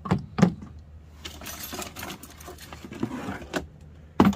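Handling noise: two sharp knocks as turned wooden table legs are set down on a plastic folding table, then rustling and metallic clinking as a bundle of metal tent stakes is lifted from a cardboard box, with a louder knock near the end.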